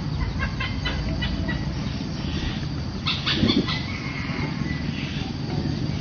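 Short clucking bird calls: a quick run of clicking notes about a second in and a louder burst of notes near the middle, over a steady low background noise.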